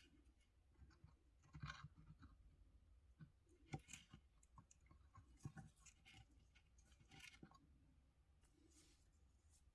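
Near silence with faint scattered clicks and scratches, the loudest about two and four seconds in, over a low steady hum.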